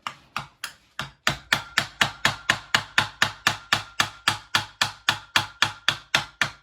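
Hammer striking the end of a screwdriver again and again, about three to four even blows a second, driving it in to pry a stuck water pump off the engine block. The first few blows are lighter and spaced, then steady harder strikes from about a second in, with a faint metallic ring.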